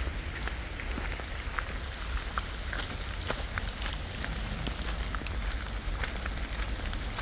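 Rain falling, with scattered raindrops tapping close to the phone's microphone over a steady low rumble.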